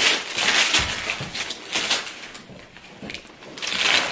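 Gift wrapping paper being torn off a box and crinkled by hand, in bursts: a run of tearing in the first second or so, a quieter spell, then more tearing near the end.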